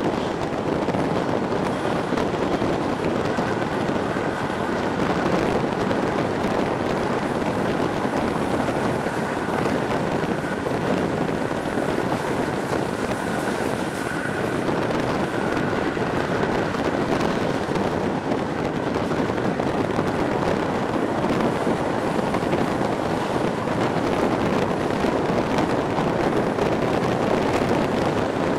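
A moving train's running noise heard at an open coach window: a steady rush of wind over the microphone mixed with the rumble of wheels on the track. A faint high whine comes in a few seconds in and fades about halfway through.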